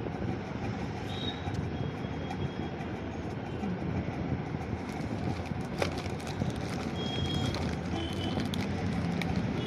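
Steady road-traffic noise from the street outside the shop, with a few faint short high tones and a single sharp click about six seconds in.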